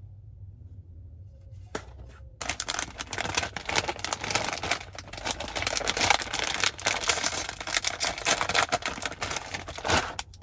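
Rapid, dense clicking and crackling that starts about two seconds in and stops just before the end, over a low steady hum.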